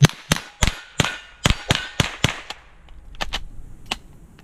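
A Ruger 10/22 rimfire semi-automatic rifle firing a rapid string of about nine shots, roughly three a second, followed by a few fainter ticks.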